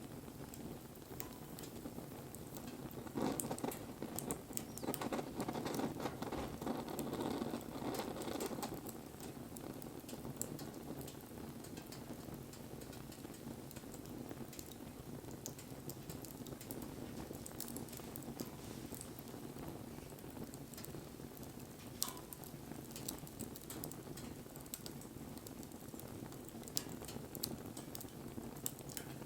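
Wood bonfire crackling and popping, with a busier, louder spell of crackling a few seconds in and one sharp pop about two-thirds of the way through.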